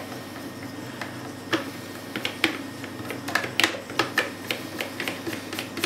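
Light, irregular clicks and taps of hard plastic parts being handled and fitted together on an Eheim Skim Marine 800 protein skimmer, starting about one and a half seconds in and coming more often in the second half.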